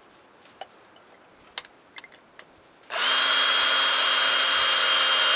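Cordless drill starting about three seconds in and running steadily at one speed, drilling into a bolt snapped off flush in an Isuzu C240 diesel engine block. A few light clicks and taps come before it.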